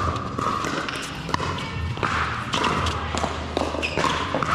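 Pickleball paddles striking the plastic ball during a rally: a string of sharp pops at irregular intervals, over a steady low hum of the indoor court hall.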